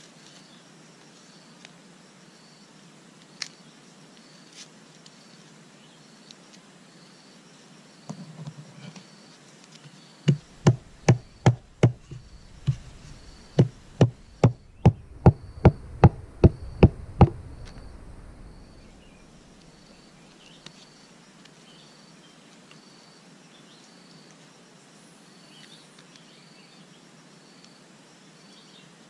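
A flat hand-held stone knocking on a woven bark sandal: a quick run of about fifteen sharp blows, two to three a second, starting about ten seconds in and lasting about seven seconds. A faint insect chirps steadily behind it.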